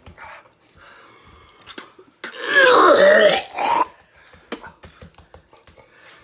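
A man retching loudly for about a second and a half in the middle, with quieter coughing and throat-clearing around it: gagging from the burn of a superhot pepper.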